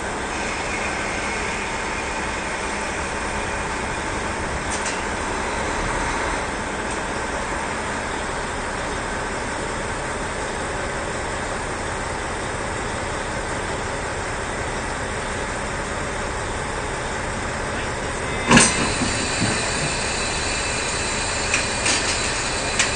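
KiHa 40 diesel railcars running with a steady engine drone while one closes in on the other for coupling. About eighteen seconds in there is a single sharp clank as the couplers meet, followed by a few lighter knocks.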